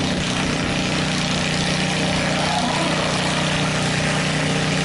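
Modified lawn tractor's engine running at a steady, constant pitch under load while it pulls the weight sled down the track.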